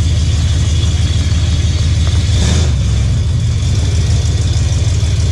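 1979 Ford F-250's V8 or six-cylinder engine running at a steady idle, a deep pulsing rumble with a brief louder rush of noise about halfway through.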